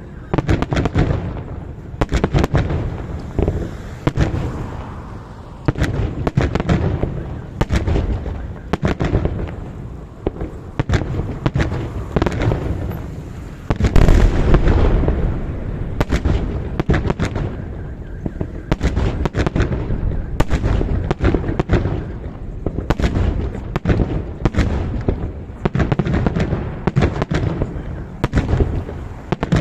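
Fireworks salute: shells bursting in quick succession, sharp bangs one after another with rumbling between them. The loudest burst comes about halfway through and is followed by a long low rumble.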